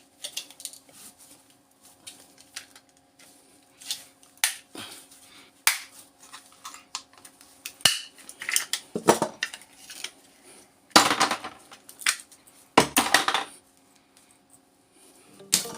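Clatter of clicks, knocks and clinks from prying and bashing open plastic power adapter cases and handling their metal parts and tools, with a few louder clusters of blows toward the middle and end, over a faint steady hum.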